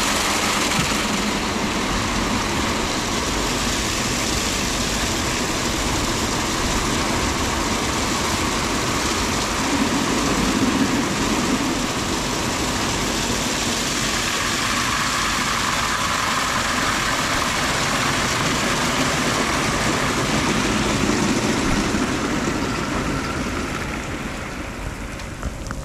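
Christ Cadis C17 rollover car wash in its brush wash stage: rotating brushes and water spray working over the car, with the gantry's motors running, as a loud steady noise that eases off over the last few seconds.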